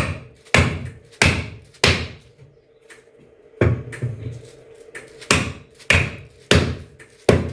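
About ten sharp knocks, roughly one every two-thirds of a second with a pause near the middle: a powder-coated aluminium frame piece being knocked down on the floor to force it into its connector.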